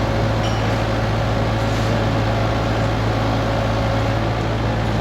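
Backhoe engine running steadily with a constant low hum while the machine works.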